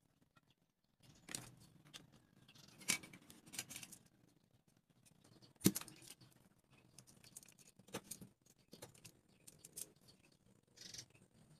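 Wooden popsicle sticks handled and set against a small wooden board: scattered light clicks and taps, with one sharper knock a little over halfway through.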